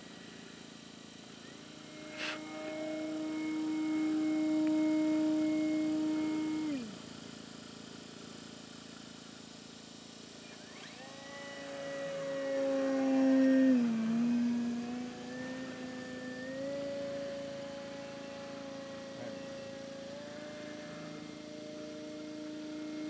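Electric motor and propeller of an E-flite Carbon-Z Cessna 150T RC plane running under throttle, a steady whine. It starts a couple of seconds in and cuts off with a falling pitch about a third of the way through. It then comes back louder, dips briefly in pitch at its loudest near the middle, and holds steady after that.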